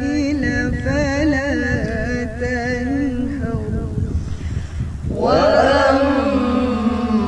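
Quran recitation in tarannum style by a young woman's voice: a long, ornamented, wavering held note that fades out a little past three seconds in. After a brief lull, another louder recited phrase begins about five seconds in.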